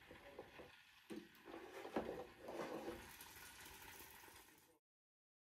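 Handling noises from a Philips air fryer drawer and a metal baking tin: light knocks and scrapes as the tin with the chicken is lifted out of the basket, with a sharp knock about two seconds in.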